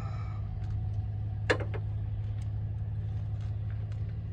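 A steady low engine hum, like a vehicle idling, with a few small sharp clicks; the loudest click comes about a second and a half in.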